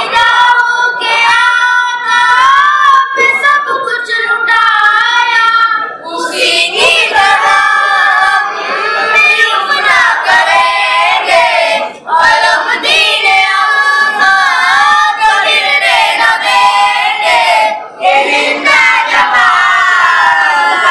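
A group of boys singing an Urdu anthem in unison into microphones, with no instruments. The singing grows fuller about six seconds in, with brief breaks between lines near twelve and eighteen seconds.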